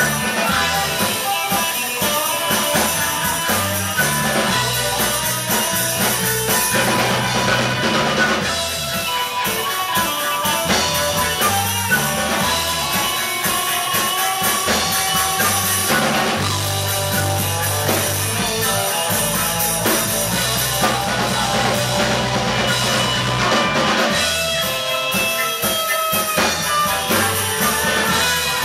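Live rock band playing an instrumental passage: flute and bowed violin carry the melody over electric guitars, bass notes and a drum kit.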